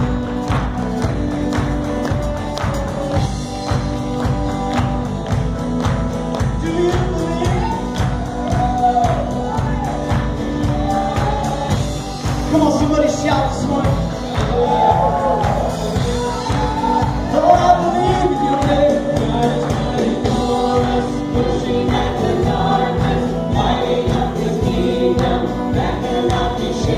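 A live worship band plays with a steady beat: electric and acoustic guitars and drums, with singers carrying the melody, stronger from about seven seconds in.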